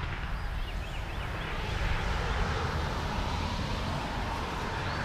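Outdoor ambience: a steady low rumble, with a few faint bird chirps about half a second in, around one second in and again near the end.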